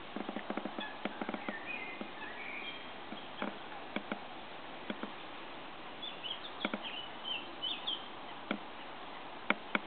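Outdoor ambience: short high chirps of small birds in two spells, a couple of seconds in and again past the middle, over a steady hiss, with scattered sharp clicks and ticks throughout.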